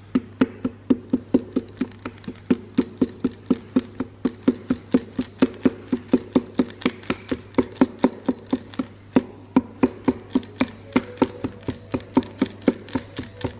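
Rapid light taps, about three to four a second with a brief pause partway, each with a short ring: a piston being tapped down through a piston-ring compressor into the cylinder bore of an Audi 2.5 TFSI five-cylinder (DAZA) block, driving the rings into the bore during assembly.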